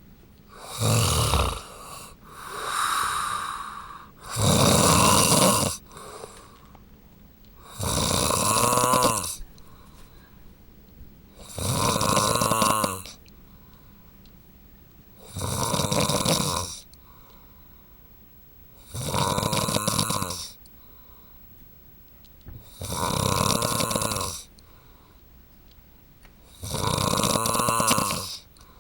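A man snoring loudly in his sleep, one snore on each breath in, about every four seconds, each lasting a second or so with quiet in between.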